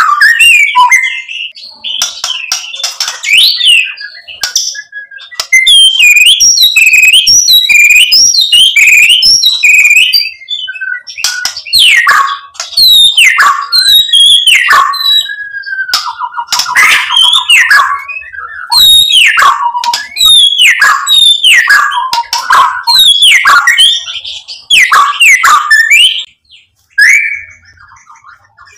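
White-rumped shama singing a loud, varied full song. A fast run of whistled notes gives way to a series of sharply falling whistles, with a brief buzzy rattle partway through.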